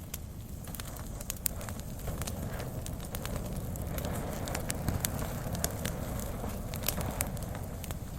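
Brush fire: a burning bush with a steady low rush of flames and frequent sharp, irregular crackles and pops.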